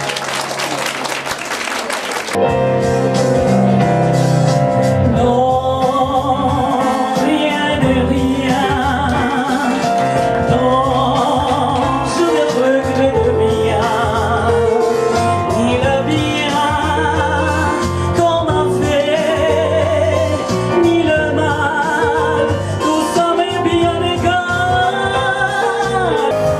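A woman singing with a wide vibrato into a microphone, accompanied by an electronic keyboard. A short burst of noise fills the first two seconds before the song comes in.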